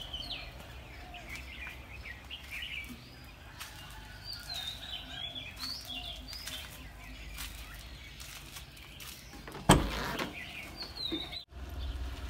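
Small birds chirping and twittering again and again over a faint low hum, with one loud thump about two and a half seconds before the end.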